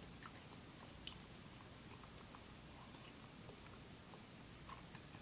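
Faint chewing of a mouthful of pasta, with a few soft, scattered mouth clicks.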